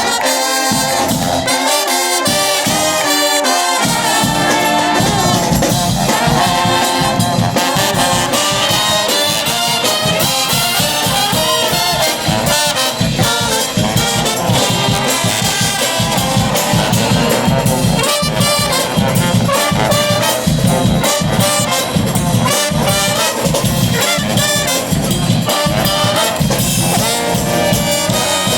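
A street brass band playing live: trumpets and trombones carry the tune over drums. The low end is thin for the first few seconds, then a steady drum beat runs under the horns from about four seconds in.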